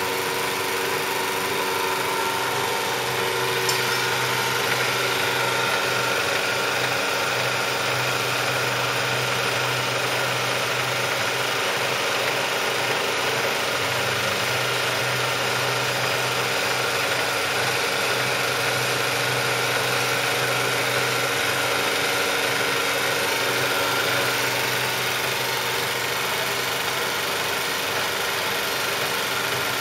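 Butler Elgamill CSN10 bed-type milling machine running under power: a steady mechanical hum with several steady tones, a low part of it stronger through the middle stretch.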